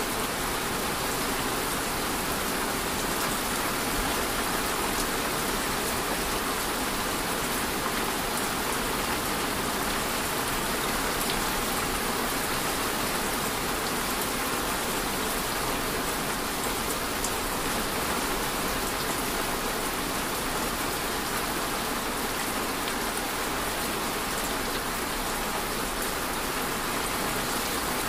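Steady rainfall: an even, unbroken hiss of rain with faint scattered drop sounds, holding the same level throughout.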